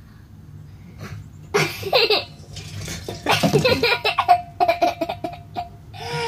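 A young boy laughing and giggling in short bursts, with a run of quick laughs in the middle and a steady high held sound for about a second near the end.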